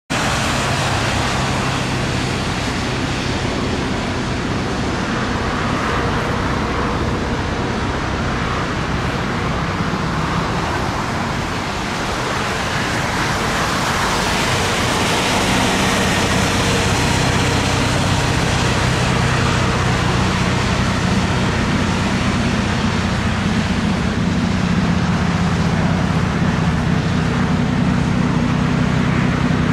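Jet airliner engines running: a steady rushing noise with a low hum underneath, growing a little louder about halfway through.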